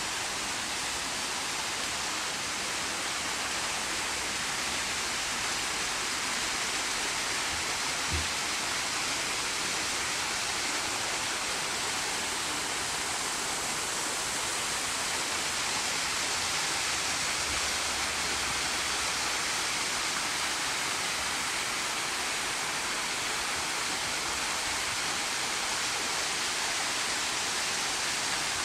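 Small garden waterfall pouring over rocks into a pond, a steady, even splash of falling water. One soft low thump about eight seconds in.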